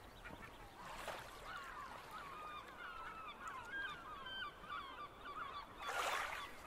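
Faint chorus of many short overlapping bird calls, like a flock of geese or other waterfowl, with a brief rushing noise about a second in and a louder one near the end.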